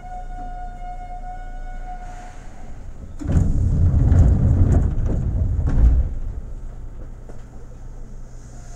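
Seibu 2000 series electric train at a station stop: a steady whine with several overtones stops about two seconds in. About a second later comes a loud low rumble with a few knocks that lasts about three seconds, then a quieter hum.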